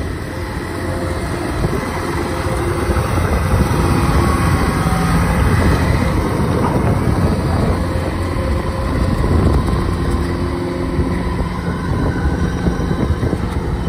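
Kubota DC-105X rice combine harvester's diesel engine running steadily as the machine travels on its crawler tracks through mud. It is loudest in the middle as it passes close.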